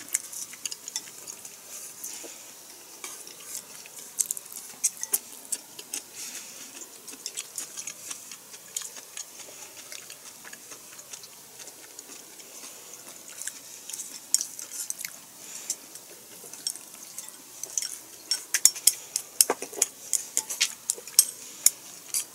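Chopsticks clicking and scraping against plates and bowls while eating: scattered light clicks that come quicker and louder near the end.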